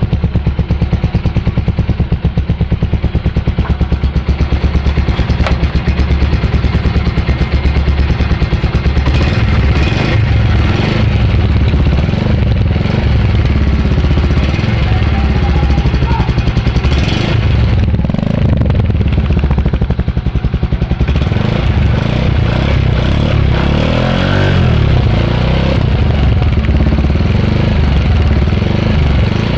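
Bajaj Pulsar 125's single-cylinder engine and exhaust running, with a fast even beat for the first several seconds that turns less regular later. The owner is unhappy with how the engine sounds after three months of use.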